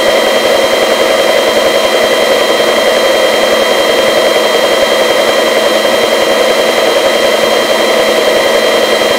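Steady, loud cabin noise of a search-and-rescue helicopter in flight, heard over the crew intercom: an even hiss with several steady high tones and the deep rumble cut away.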